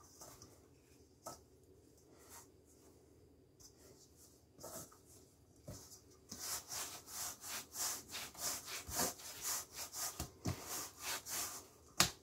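Hands kneading a stiff sourdough dough in a floured stainless steel bowl. Faint scuffs at first, then from about six seconds in a quick run of rubbing, scraping strokes, about two a second, and one sharp knock near the end.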